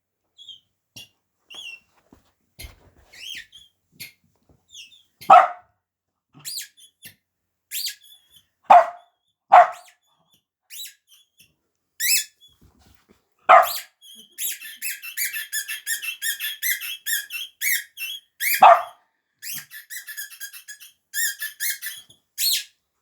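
Dog barking in single short barks every few seconds. From a little past the middle until near the end there is a fast patter of high squeaks and clicks.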